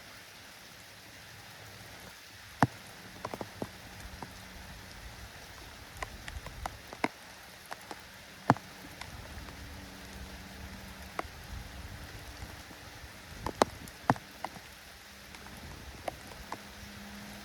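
Steady drizzle with irregular sharp drips tapping on a hard surface, one every second or two, and a faint low hum coming and going.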